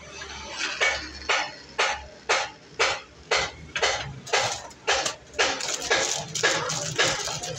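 Sharp clinking strikes repeating steadily about twice a second, each ringing briefly, like metal being struck.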